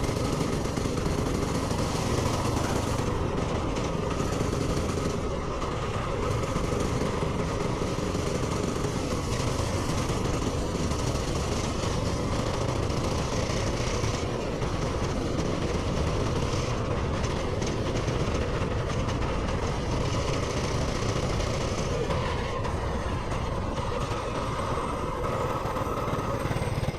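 Small single-cylinder minibike engine running steadily while riding, with wind and road noise.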